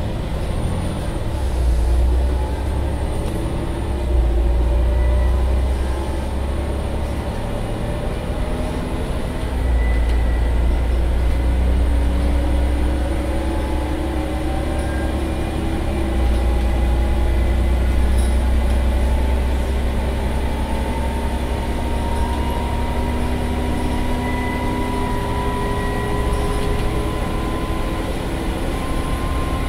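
Scania CN94UB Omnicity bus's five-cylinder diesel engine thrashing under hard acceleration, heard inside the saloon. Its note climbs slowly, drops back at a gear change and climbs again, over a heavy low rumble.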